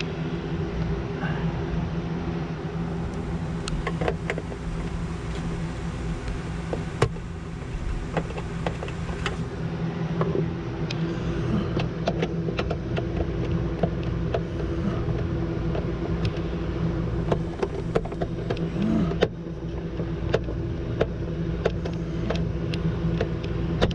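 Scattered clicks and knocks of an autopilot control unit being handled and screwed to a wooden bulkhead, over a steady low hum.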